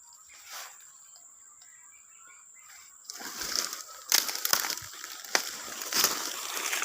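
Crunching, crackling rustle of dry vegetation, starting about three seconds in, with several sharp cracks. A faint steady high-pitched tone runs underneath.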